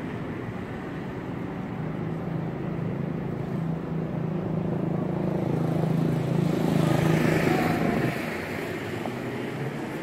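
Urban street traffic with a motor vehicle passing: a low engine drone that grows louder to a peak about seven seconds in, then drops away sharply a second later.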